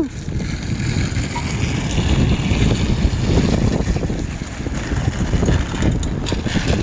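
Wind rumbling steadily on the microphone of an off-road motorbike being ridden, with the bike's running noise mixed in underneath.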